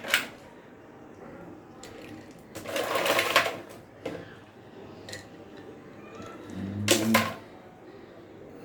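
Ice cubes clattering into glasses of sharbat in three bursts: at the start, about three seconds in, and about seven seconds in.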